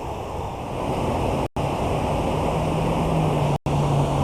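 Wind rumbling on the microphone: a steady low rushing noise, cut by two very short gaps of silence.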